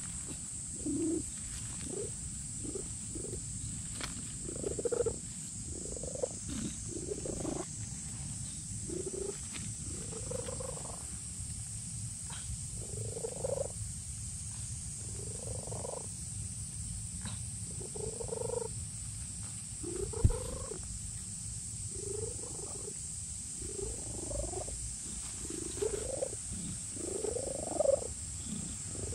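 Domestic cat purring steadily while being stroked, a contented purr. Short rising calls come every second or two over the purr.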